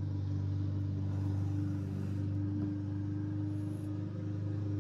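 Steady low mechanical hum, unchanging, with a few fainter steady tones above it.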